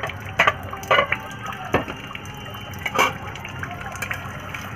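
Aluminium cookware clattering as a lid, pot and spatula are handled: about five sharp metallic clinks and knocks spread over a few seconds.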